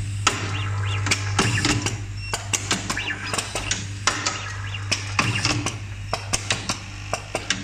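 Automatic tube-terminal stripping and crimping machine running: a steady low hum from its vibratory bowl feeder, with rapid irregular clicks and clacks of its pneumatic cylinders and mechanism and short high chirps now and then.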